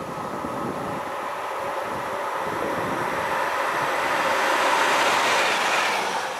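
Electric locomotive passing on the main line at speed. Its rolling and rushing noise grows louder as it approaches, peaks about five seconds in as it goes by, then falls away quickly.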